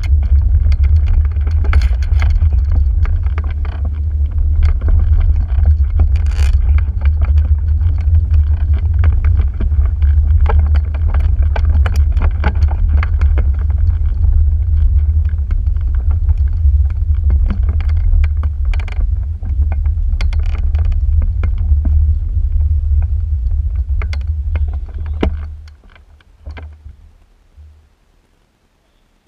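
Microlight trike engine running at low power with a deep, steady rumble and scattered irregular knocks. The engine is rough-running and missing badly below full throttle. About 25 seconds in it is shut off and dies away with a couple of last coughs.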